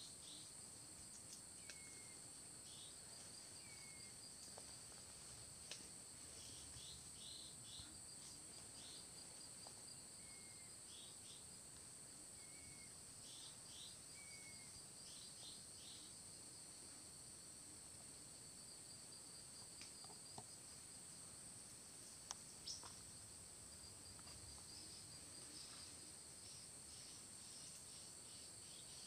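Faint, steady high-pitched chirring of insects, with a bird giving short, slightly falling chirps every few seconds and a few faint clicks.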